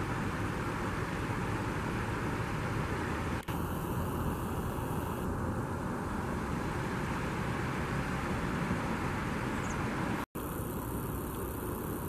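River water rushing steadily over a low rocky ledge and through a shallow riffle, a continuous even wash of noise, broken by a split-second gap twice.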